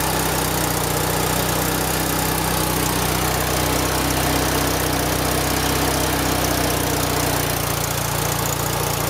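Winnebago LeSharo's Renault 2.2-litre four-cylinder gasoline engine idling steadily, heard up close in the open engine compartment.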